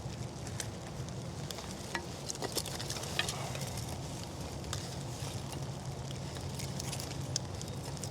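Small split-wood fire of wet hardwood crackling, with scattered irregular sharp pops.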